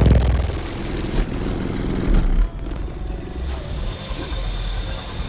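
Deep bass from a car audio system's six 18-inch subwoofers, which cuts off about two and a half seconds in, leaving a low, steady rumble.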